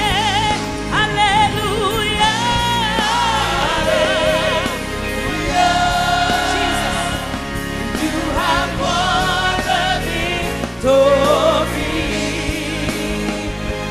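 Gospel choir and a lead singer singing a worship song with vibrato over live band accompaniment.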